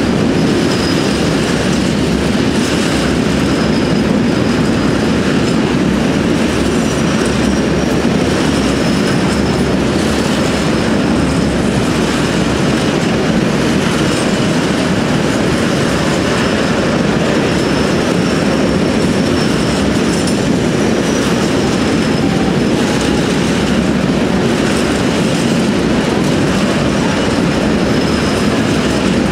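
Freight train of tank wagons rolling past at close range: steady rumble and rattle of wheels on rail, with faint high squeals from the wheels coming and going.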